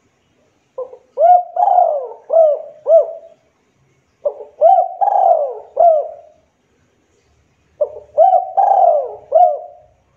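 Spotted dove cooing: three phrases of several quick, arching coo notes, each phrase about two seconds long, with short pauses between them.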